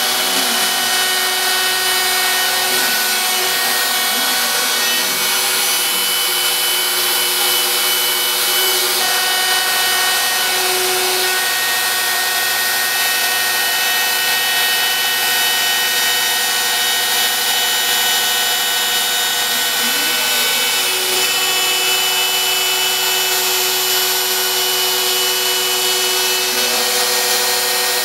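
Home-built CNC router cutting MDF: the router spindle runs steadily with a high whine and the noise of the bit cutting, while a motor whine glides down and back up in pitch a few times.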